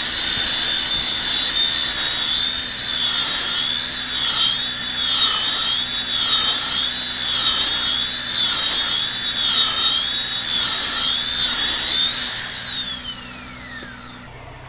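Electric rotary car polisher with a buffing pad running against the clear coat, a high whine whose pitch wavers up and down as the pad is pressed and worked over the paint. About two seconds before the end it is switched off and the whine falls away as the pad spins down.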